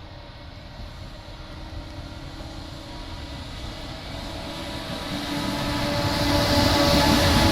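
A train approaching on the line, its rumble growing louder and swelling sharply over the last couple of seconds, with a steady whine coming in as it nears.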